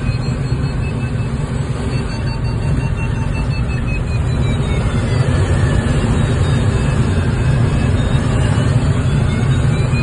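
Steady rush of air around the cockpit of an unpowered Schweizer SGS 2-33 glider in flight, with no engine. Faint audio-variometer tones slide slowly down in pitch and rise again near the end.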